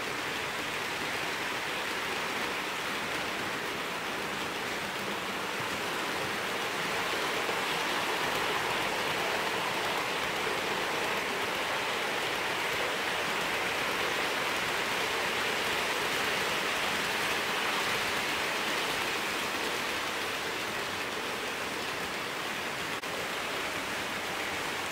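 OO gauge model trains running past: a steady rolling noise from the wheels of the coaches and wagons on the track, a little louder in the middle as a train passes close. The model locomotives' motors are barely audible under it.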